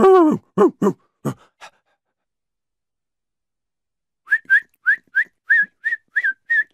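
A cat meowing a few times in the first second and a half. After a pause, a person whistles a quick run of short high notes, about four a second, to call a dog.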